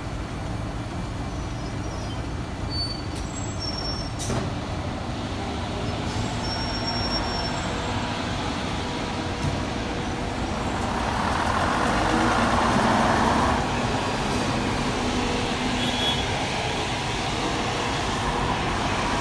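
Diesel engine of a London Transport RF-type AEC Regal IV single-deck bus running as it drives slowly away across the forecourt. The engine noise swells for a few seconds partway through, and there is a single sharp click about four seconds in.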